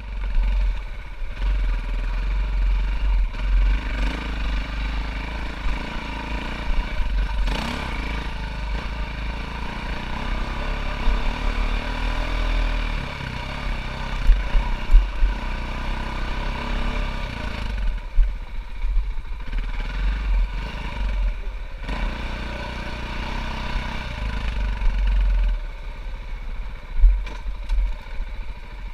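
Four-stroke dirt bike engine running on a rough trail, revving up and down, with occasional knocks and clatter from the ride.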